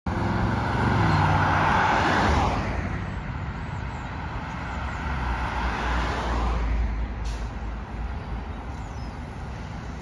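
Interior sound of a 2007 New Flyer D40LFR transit bus, its Cummins ISL diesel engine running with a steady low drone. A loud hiss over the first two and a half seconds is the loudest part, with a weaker one a few seconds later and a single sharp click about seven seconds in.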